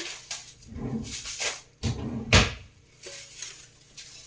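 Household objects being handled: a series of knocks and bumps, the loudest a heavy thud a little over two seconds in.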